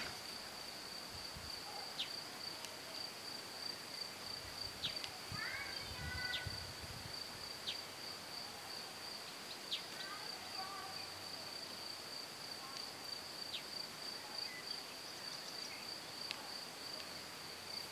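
Meadow insects trilling steadily at one high pitch, with a few faint scattered clicks.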